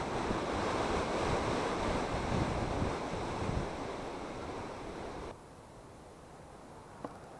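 Gusting wind buffeting the microphone, strong at first and easing off, then dropping away abruptly about five seconds in.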